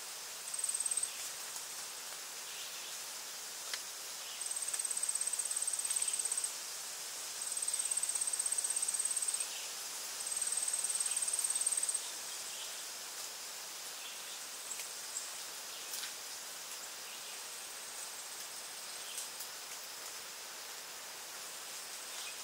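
High-pitched insect trill, buzzing in bouts of about two seconds, four times in the first twelve seconds, then only faintly, over a steady outdoor hiss. A few faint clicks.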